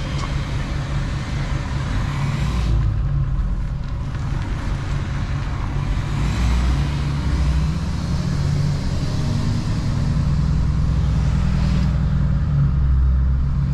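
Truck engine running steadily with a low rumble.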